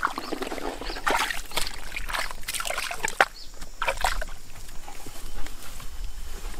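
Footsteps squelching through wet mud, with irregular wet sloshing bursts, a few a second.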